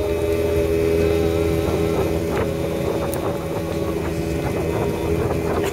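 Motorboat engine running at a steady speed.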